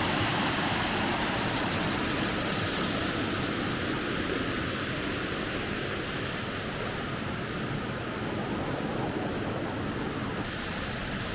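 Steady rush of water from a waterfall and stream, growing slightly quieter over the stretch.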